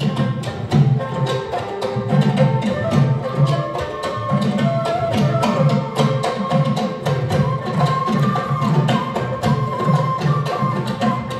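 Ensemble of traditional Assamese folk instruments playing: drums beating a steady repeating rhythm with sharp percussion strikes, under a melodic line.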